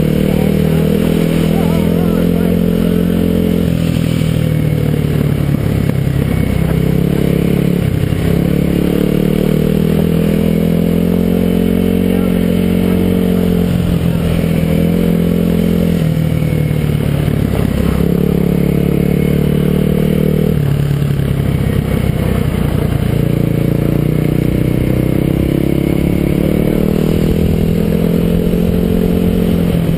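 Kawasaki KLX250 dual-sport motorcycle's single-cylinder engine running on a dirt road, its pitch climbing and then dropping as the throttle eases off every few seconds.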